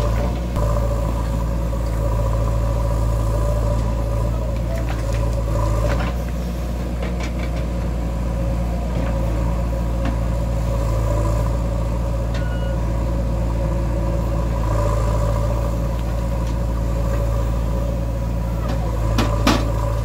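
Diesel engine of a JCB 3DX backhoe loader running steadily while the backhoe arm digs, its note swelling and easing every few seconds as the machine works. A few short knocks come through, two of them near the end.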